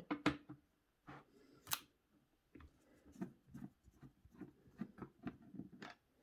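Hand screwdriver working tight screws on a motherboard's CPU cooler mounting hardware: a string of small metallic clicks and scrapes, with a sharper click about two seconds in, then quicker light ticks.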